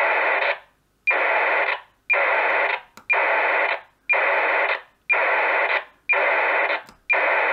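Vaisala RS41 radiosonde's telemetry heard through the speaker of a Baofeng handheld ham radio tuned to 403.900 MHz: eight short data bursts, about one a second, each opening with a brief tone. It shows the sonde, just switched back on, is still transmitting.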